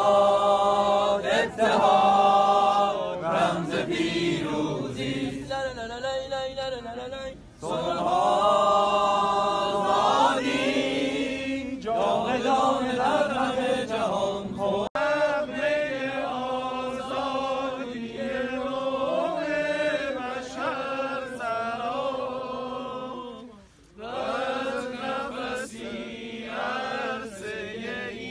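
A large crowd singing a Persian song together in unison, in phrases with short breaks between them and one clear pause about two-thirds of the way through.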